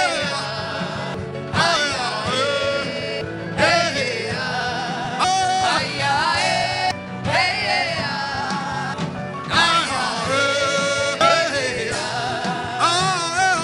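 Worship music: a voice singing long, wavering phrases that glide in pitch, a new phrase about every two seconds, over a steady instrumental backing.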